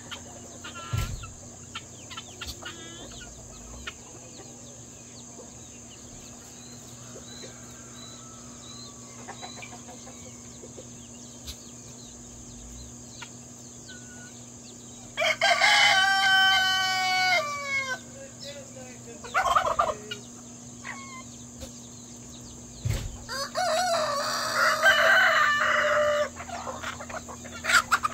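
Free-ranging chicken flock clucking, with a rooster crowing loudly about halfway through, a crow of nearly three seconds. Shorter calls follow, and a loud, harsher burst of squawking comes near the end.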